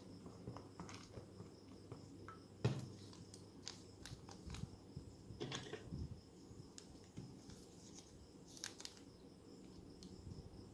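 Faint handling of a zip-lock plastic bag of slime: scattered soft taps and crinkles, with one sharper tap about two and a half seconds in, over a steady low hum.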